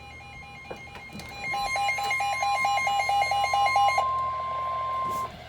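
Emergency alert tones announcing a severe thunderstorm warning. A rapid beeping alarm, about five beeps a second, gets louder about a second and a half in and stops about four seconds in. Overlapping it, a single steady tone starts and runs on alone for another second or so before it cuts off.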